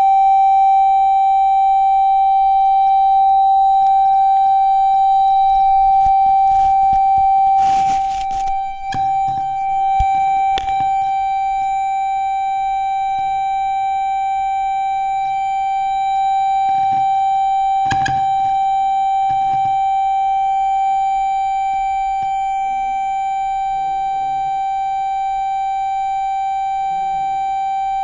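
Steady test tone from a function generator, played through a home-built transistor audio power amplifier and its loudspeaker. It is held at one mid-high pitch with faint overtones. A rustle and a few handling knocks come partway through.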